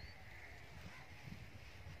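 Faint outdoor ambience: irregular low rumbling on the microphone with faint distant animal calls.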